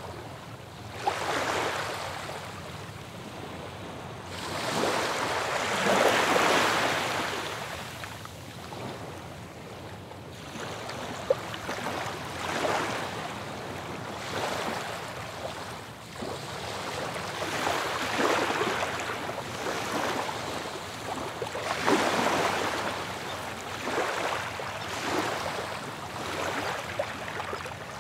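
Ocean surf: waves breaking and washing up a shore, each one swelling up and falling away every few seconds.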